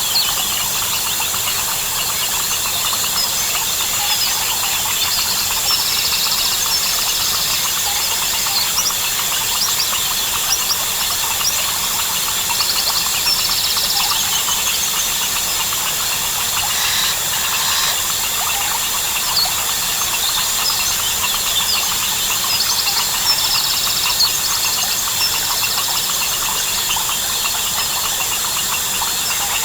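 Tropical rainforest chorus of crickets, frogs and birds: a steady, dense high-pitched insect trilling, with fast pulsed trills rising out of it three times (a few seconds in, around the middle, and about two-thirds through) and scattered short chirps and calls.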